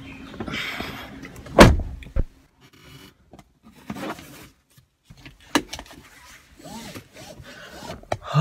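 A car door shutting with one heavy thump about one and a half seconds in, heard from inside the cabin, followed by a smaller knock. Then scattered clicks and rustles of someone settling into the car seat.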